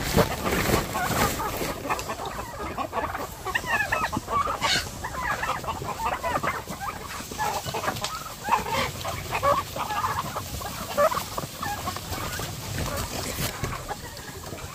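A flock of chickens clucking, many birds calling over one another at once, with a few short knocks mixed in.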